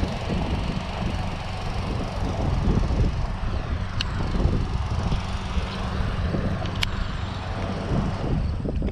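Lawn mower engine running steadily close by, with two sharp clicks about four and seven seconds in.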